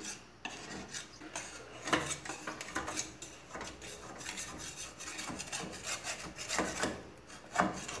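A knife scraping around the inside of an aluminium tube cake pan to loosen a baked cake from the sides: repeated short, irregular strokes of metal rasping against the pan.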